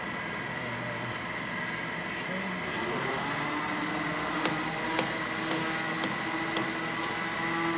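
Southwest Trak DPM bed mill's spindle running with a steady high whine. About three seconds in, a lower hum slides up and settles as the variable-speed dial is turned. Then come six sharp clicks, about two a second, as the quill area of the head is handled.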